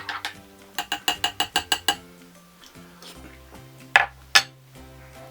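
A spoon stirring in a cup, clinking quickly against the sides about eight times a second for about a second, then two loud sharp clinks a little before the end. Background music plays throughout.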